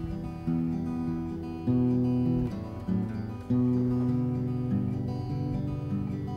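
Acoustic guitar strummed, moving to a new chord about once a second.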